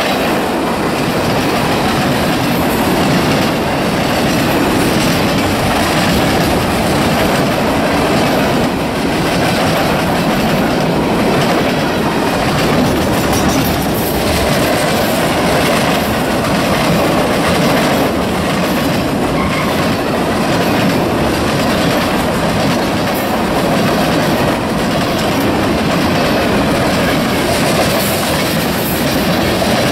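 CSX freight train of boxcars, coil cars and covered hoppers rolling past at close range: a steady rumble and clatter of steel wheels on the rails.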